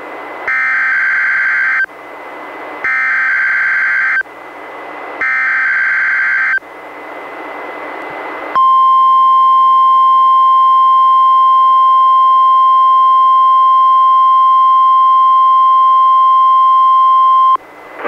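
NOAA Weather Radio alert signalling on a weather radio receiver: three bursts of the SAME digital header, a harsh warbling data screech of about a second and a half each, then the steady single-pitch warning alarm tone held for about nine seconds and cut off sharply. Radio hiss fills the gaps between the bursts.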